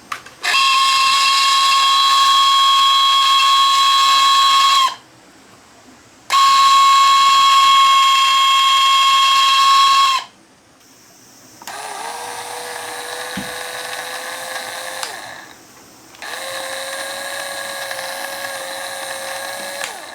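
Electric motor of a Koshin GT-3S battery-powered sprayer switched on and off four times. The first two runs are loud with a high, steady whine, the abnormal noise the owner puts down to rust forming in the motor from washing water left inside. The last two runs are quieter and lower-pitched.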